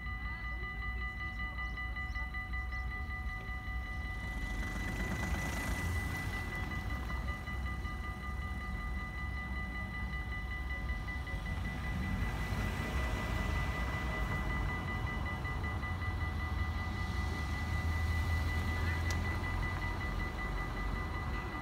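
Dutch automatic level-crossing warning bells ringing steadily with a rapid, even ding while the barriers are down, over a low rumble that grows a little louder near the end.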